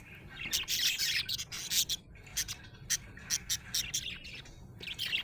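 Budgerigar chirping: a dense run of high chirps in the first two seconds, then short, sharp chirps and clicks at an uneven pace, with another burst of chirping near the end.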